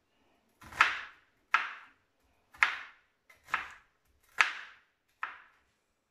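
Kitchen knife chopping a peeled onion on a plastic cutting board: six separate chops, about one a second, each a sharp knock with a short crunchy fade.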